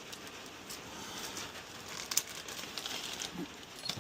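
Faint rustling with scattered light clicks from rummaging through a stock of car key blanks, one sharper click about halfway through.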